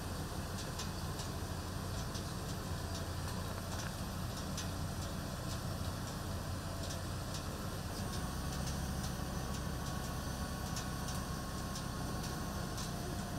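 Parked ambulance's engine idling, a steady low rumble, with faint ticks over it; the rumble shifts slightly about eight seconds in.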